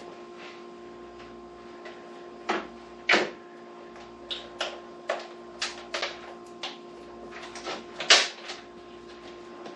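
Irregular clicks and knocks of hands handling cables and devices, about a dozen, the loudest about three seconds in and again near eight seconds, over a steady faint hum.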